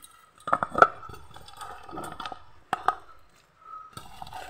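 Utensil clinking and scraping in a pan of boiling gravy: a cluster of sharp knocks about half a second in and another near three seconds.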